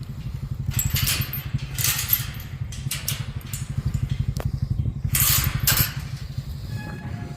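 A small engine idling steadily with an even low throb, with short harsh noises over it about one, two and five seconds in.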